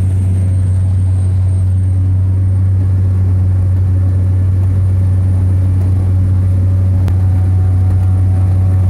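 Cessna 208 Caravan's PT6A turboprop engine and propeller running, heard from inside the cabin: a loud, steady low drone with a thin, steady high whine above it.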